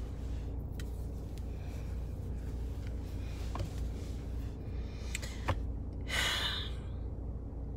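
A breathy exhale about six seconds in, over a steady low rumble with a few light clicks.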